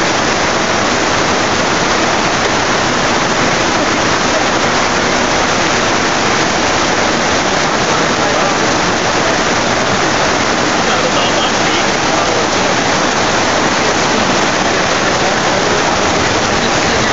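Heavy rain pouring down in a dense, steady hiss that does not let up.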